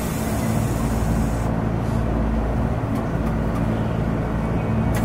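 Tokyo Metro Ginza Line 1000-series train pulling out of the platform, running past the platform screen doors with a steady rumble of wheels and motors. The high hiss drops away about a second and a half in.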